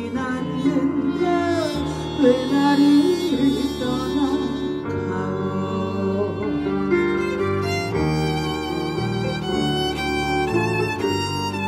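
A violin plays a slow melody with sliding notes and vibrato over sustained low accompanying notes that change in steps.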